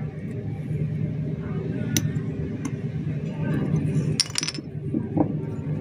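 A small loudspeaker magnet clicking against an iron-bearing rock as it is pulled off and stuck back on: a sharp click about two seconds in, then a quick run of metallic clinks near the four-second mark. A steady low hum runs underneath.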